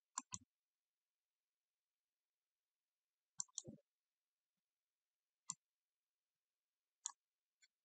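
Faint, sparse computer mouse clicks against near silence: two quick clicks at the start, two more about three and a half seconds in, then single clicks near five and a half and seven seconds.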